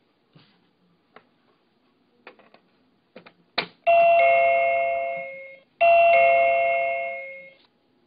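Small plastic clicks and knocks as the Byron B305 wireless door chime is pushed into a wall socket, then the chime's electronic ding-dong rings twice, each two-note ding-dong fading out over about a second and a half. The ring is the chime's power-on signal on being plugged in.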